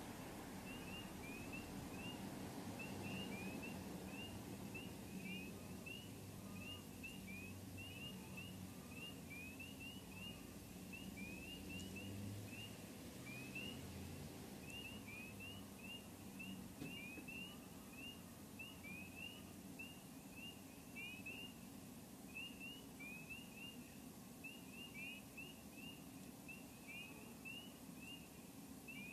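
A chorus of frogs peeping at night, many short rising high peeps overlapping several times a second, over a faint low rumble.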